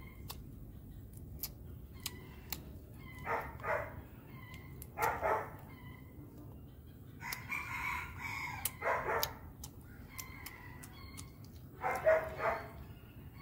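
A rooster crowing in the yard, several calls spread through: short ones, one longer crow around the middle, and a loud one near the end.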